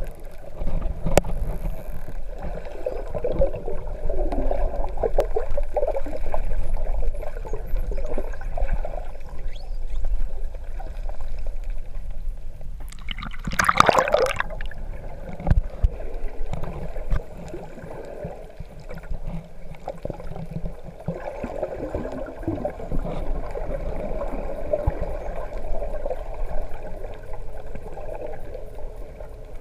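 Underwater water noise picked up by a GoPro in its waterproof housing while snorkeling: steady low gurgling and bubbling with scattered small clicks. About thirteen to fourteen seconds in there is a louder burst of bubbling and splashing as the camera nears the surface.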